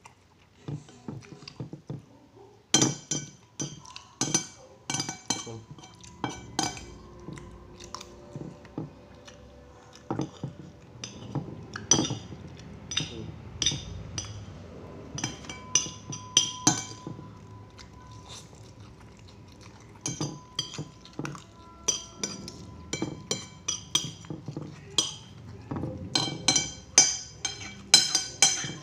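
Metal spoon and fork clinking and scraping against a ceramic plate while eating fried noodles, in irregular clusters of sharp ringing taps, busiest near the end, with some chewing between them.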